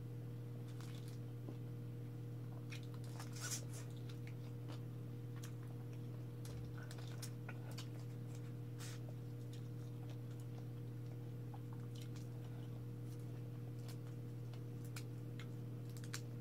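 Fingers picking apart cooked crab shell and chewing: scattered small clicks and crackles, the loudest about three and a half seconds in, over a steady low hum.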